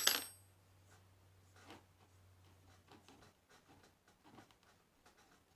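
A single sharp metallic clank with a brief high ring as metal parts or a tool strike each other, followed by faint scraping and small handling clicks on the lathe's headstock.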